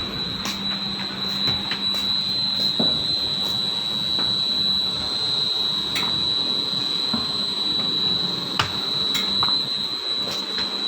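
Box-making grooving machine running: a steady high whine over a low hum, with scattered sharp clicks.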